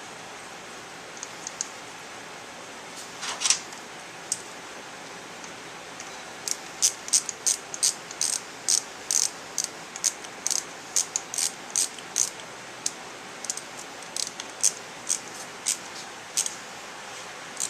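Ratchet clicking as the engine cover's screws are driven in. A few single clicks come first, then a long run of quick strokes at about two to three clicks a second that stops shortly before the end.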